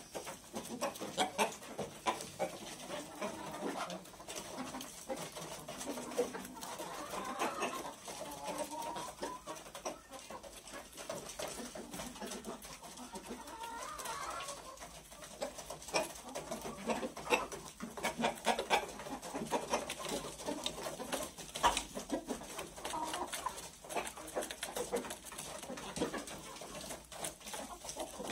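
Chickens clucking at a wooden feed trough, with many short, sharp taps of beaks pecking grain.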